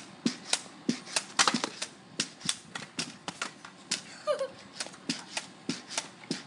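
Pogo stick bouncing on concrete: its rubber tip strikes the slab and the spring clacks in a quick, even run of taps, about three a second.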